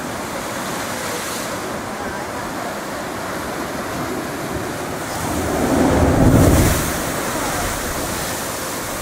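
Sea surf churning at the La Bufadora marine blowhole, with a louder rushing surge of water about halfway through, lasting a second or two, as the blowhole spouts.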